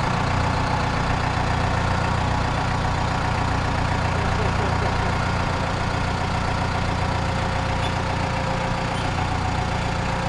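Compact tractor's engine running steadily at low speed as the tractor creeps forward carrying a metal carport building on its hitch and forks.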